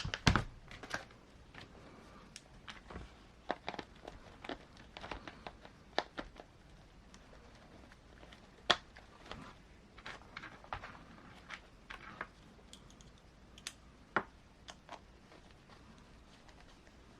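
Irregular light clicks and taps of small plastic parts being handled on a 1/18-scale RC crawler, with one sharper click about nine seconds in.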